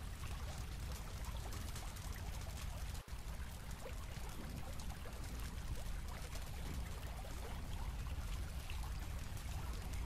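Quiet, steady rushing noise, with a momentary dropout about three seconds in.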